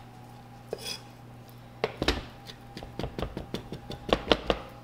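Chef's knife chopping fresh rosemary on a wooden cutting board: irregular knocks of the blade on the wood. They are sparse at first and come faster from about two seconds in.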